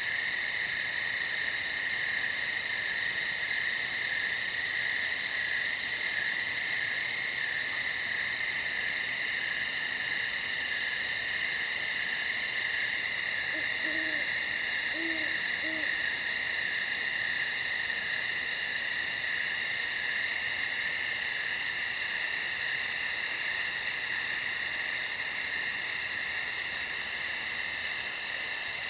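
Night-time nature ambience: a continuous high-pitched insect chorus, with an owl giving three low hoots in quick succession about halfway through.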